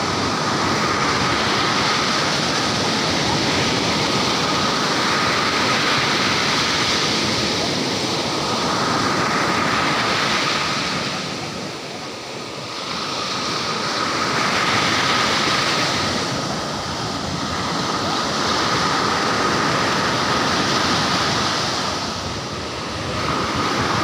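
Ocean surf breaking and washing up a sandy beach, a continuous rush of water that swells and eases with the waves, with brief lulls about halfway through and near the end.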